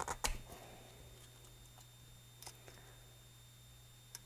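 Light clicks and taps from handling the wire float arm of a boat fuel-gauge sending unit and its small washers, several in quick succession near the start and one more about halfway through. A faint steady low hum runs underneath.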